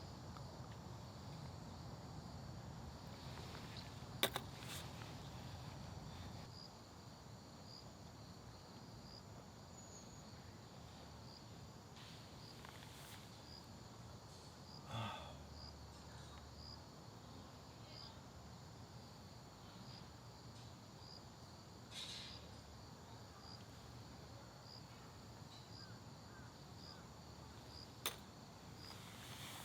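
Faint outdoor background with a grass insect chirping steadily, one high, short chirp about every second. A few sharp clicks and brief knocks come in now and then, one about four seconds in and one near the end.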